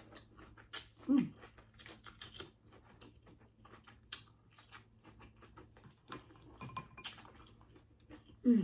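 King crab legs being cracked and picked apart by hand: an irregular string of sharp clicks and snaps from the shells, with two brief mouth sounds, about a second in and near the end.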